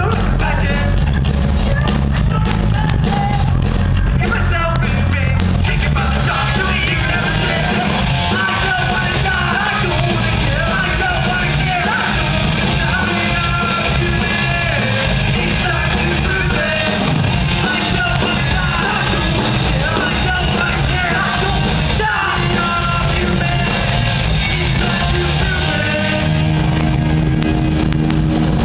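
Live rock band playing: electric guitars, bass guitar and drum kit, with a singer's voice over the top.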